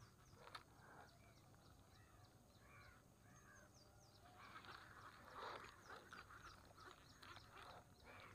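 Faint duck quacks, a string of about five calls a little over half a second apart. After about four seconds they give way to a soft rustling and scuffing of someone moving along a grassy bank.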